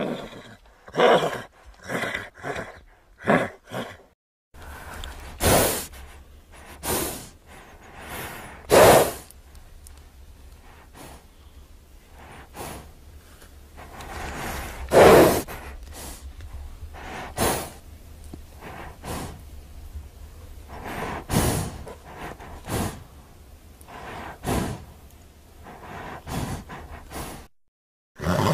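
A string of short, separate human non-speech vocal sounds, sighs and gasping breaths among them, a second or two apart, a few of them loud.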